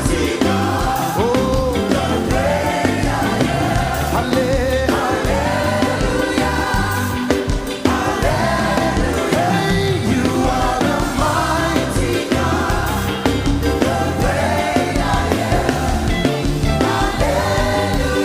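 Gospel worship music: voices singing gliding melody lines over a band with a steady bass.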